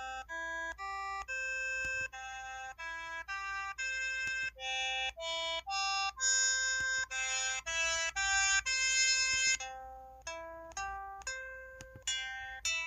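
EV-W350 button key tones: a quick run of short synthesized beeps, each at a different pitch, about two to three a second. About ten seconds in they give way to notes that ring briefly and fade, like plucked strings.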